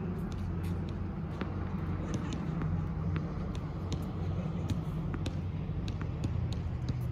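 Steady low background rumble, with faint scattered clicks.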